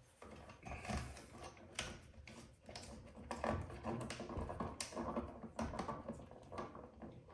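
Hands working wiring on a light switch: a quick, irregular run of small clicks, scrapes and rustles as a wire is wrapped onto its terminal and the switch is worked into place.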